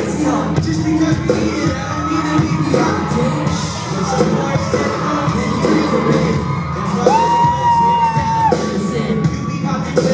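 Live rap-pop song played loudly through a concert hall's sound system, with the performer's vocals over the backing track and the crowd yelling along. A long held note sounds for about a second and a half around seven seconds in.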